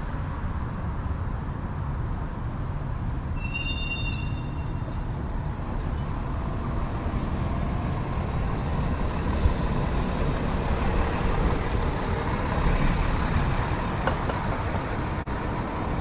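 Steady low rumble of street traffic, with a city transit bus among it. About three and a half seconds in there is a brief high-pitched squeal lasting about a second and a half.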